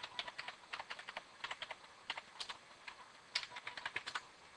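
Typing on a computer keyboard: irregular runs of short key clicks as an ID number and password are entered.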